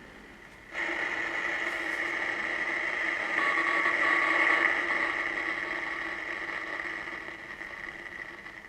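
Receive audio from a uBitx v4 HF transceiver's speaker: a harsh rushing noise with steady tones running through it, starting about a second in, swelling and then fading toward the end. This is the rig's bad, distorted audio on the air.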